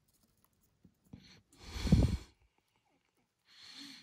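A person breathing out hard close to the microphone about two seconds in, then a softer breath near the end, with near silence in between.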